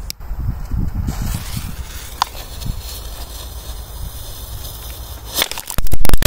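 A low rumble, then near the end a fast, loud burst of crackling pops as a cracker-ball firecracker goes off.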